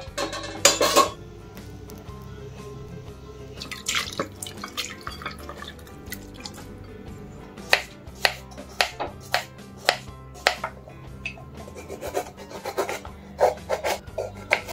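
A steel lid clatters onto a steel wok. Then a small kitchen knife slices a cucumber on a wooden chopping board, each cut ending in a sharp tap of the blade on the board, about one or two a second.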